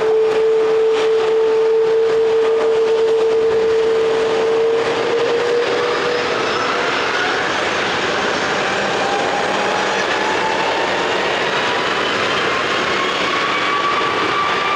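Airbus A330's Rolls-Royce Trent 700 turbofans running up for takeoff: a steady jet roar with engine whines that climb slowly in pitch, the strongest whine fading out about six seconds in.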